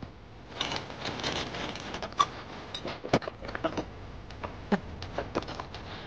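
Metal clanks, clicks and rattles of trailer-hitch hardware being handled as a trailer is hooked up to a pickup's weight-distribution hitch, a few of the knocks ringing briefly.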